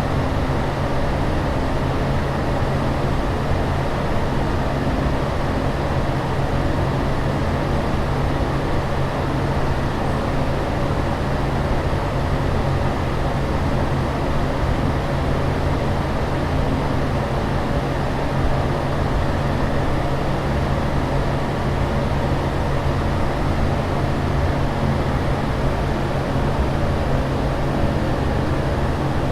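Steady, unbroken aircraft cabin drone in flight, the engine and air noise of a jet in cruise, with a low steady hum beneath.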